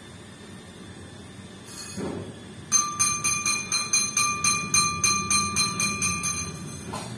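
A small bell rung rapidly, about four strikes a second for nearly four seconds, its ringing tone carrying on between strikes.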